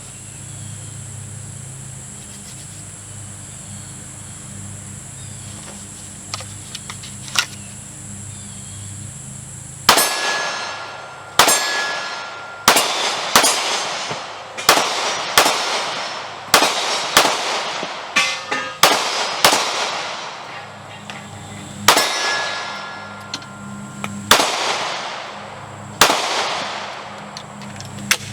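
Smith & Wesson Shield Plus pistol fired one-handed, a string of roughly eighteen shots starting about a third of the way in, with steel targets clanging on hits. The shots come quickly at first, about one every half second to second, then spread out toward the end. A steady insect chirr runs underneath.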